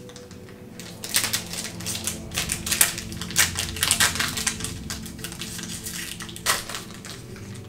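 Foil trading-card booster pack being torn open by hand: a run of crinkling and ripping crackles from about a second in, easing off, with one sharp crackle near the end.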